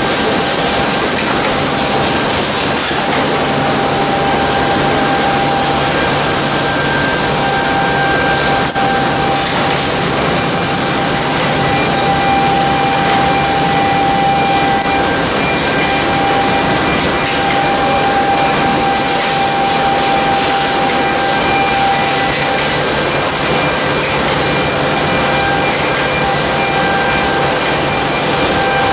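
Packing section of an industrial bread line running: conveyors, a bread bagging machine and the factory plant make a steady mechanical din with a few constant humming and whining tones.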